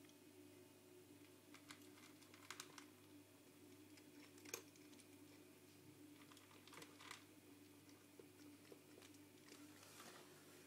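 Faint, irregular crunching clicks of a Maine Coon cat chewing dry kibble, heard over a low steady hum.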